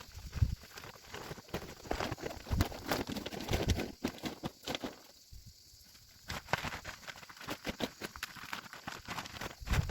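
Irregular rustling and crackling with soft thuds, like something being handled or moved through by a person, going quiet for about a second around the middle.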